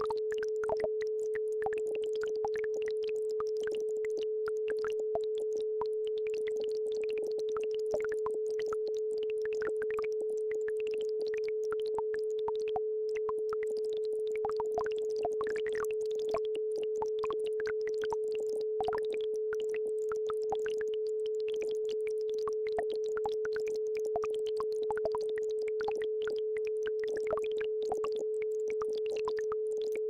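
A steady electronic brainwave-entrainment tone, one pure pitch a little below 500 Hz held without change, over a faint trickle of a babbling brook.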